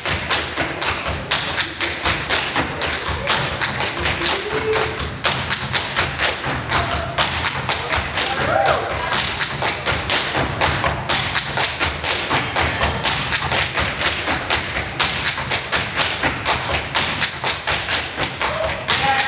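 Fast, steady percussive beat of sharp thumps and taps, several strokes a second, driving a stage dance routine.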